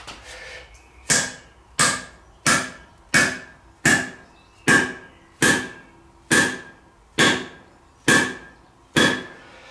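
Hand-held axe repeatedly rapped down on a concrete floor to drive the handle home in the head: about a dozen sharp knocks, evenly spaced a little more than one a second, each with a short ring.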